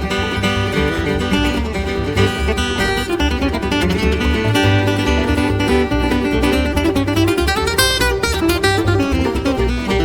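Country-style background music: an instrumental break led by strummed and picked acoustic guitar over a steady beat.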